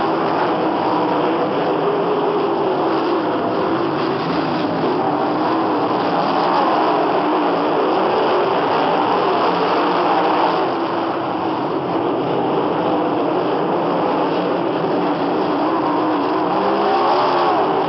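Several winged sprint cars' V8 engines racing around a dirt oval, their engine notes overlapping and swelling and falling in pitch as the cars come past and go away.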